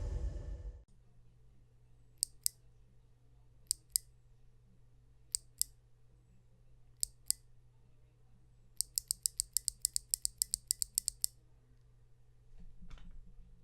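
A bare Kailh Box clicky keyboard switch, unmounted and without a keycap, pressed and released four times slowly, each stroke giving a crisp click going down and another coming back up. After that comes a quick run of about sixteen clicks. The tail of music fades out in the first second.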